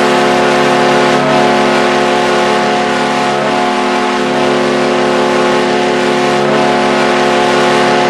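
Buffalo Sabres goal horn blaring a loud, steady, many-toned chord without a break, over a constant wash of noise.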